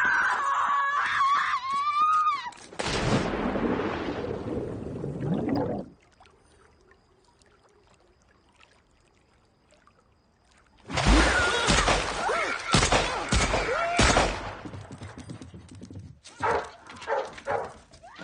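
A woman screaming wildly, then a long crashing noise lasting a few seconds. After a few seconds of near quiet, more screaming comes in with several heavy thuds and bangs, and a few short bursts near the end.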